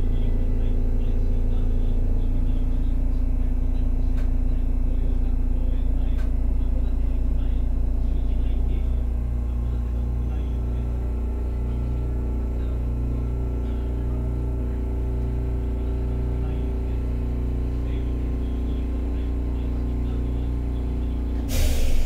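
Interior running sound of a Hakodate City Transportation Bureau 3000-type tram: a steady low rumble of wheels and running gear that eases off and gets quieter about nine seconds in. Near the end, a short loud hissing burst.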